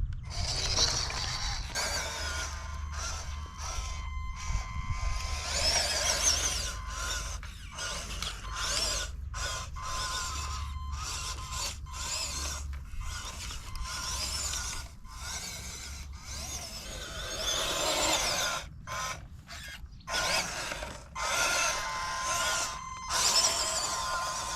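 WPL B16 RC six-wheel truck's 280 electric motor and geartrain whining as it drives, the pitch rising and falling with the throttle and cutting out briefly several times, over a low rumble.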